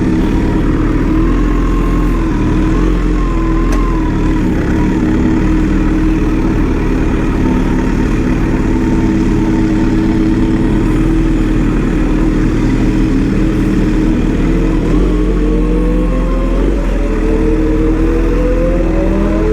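An engine running steadily at constant speed, then rising in pitch as it revs up over the last few seconds. A single click about four seconds in.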